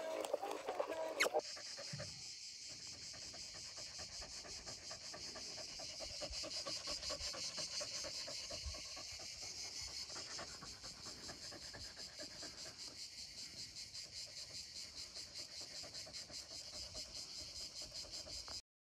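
A dog panting close by for about a second, then a steady high chorus of insects trilling with a fast, even pulse.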